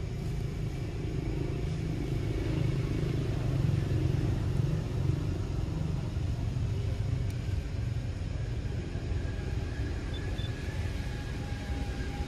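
Low, steady outdoor rumble with no distinct events.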